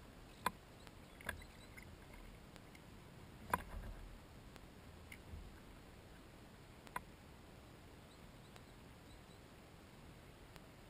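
Occasional sharp clicks and knocks of fishing gear handled in a kayak, about five over the stretch, the loudest about three and a half seconds in, over a faint steady background.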